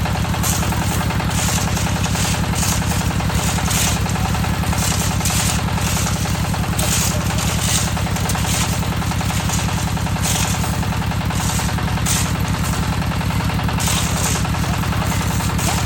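A concrete mixer's engine running steadily at an even speed, with short noisy bursts every second or so over it.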